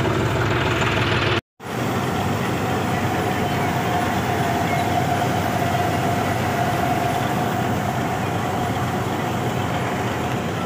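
John Deere 5105 tractor's diesel engine running for about a second and a half, cut off suddenly. Then a combine harvester runs steadily while its unloading auger pours wheat grain into a trailer, with a steady whine through the middle.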